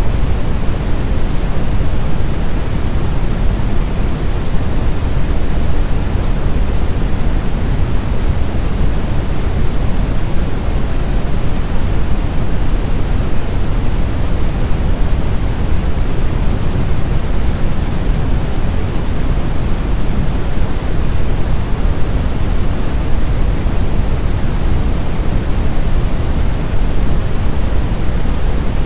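Deep, smooth brown noise: a steady, even rumble strongest in the bass and falling away toward the treble, with no change throughout.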